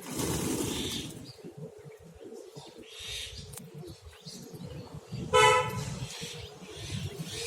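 Scattered bird calls over a low background rumble. A single short vehicle horn toot, one steady pitched tone lasting under half a second, sounds about two-thirds of the way in and is the loudest sound.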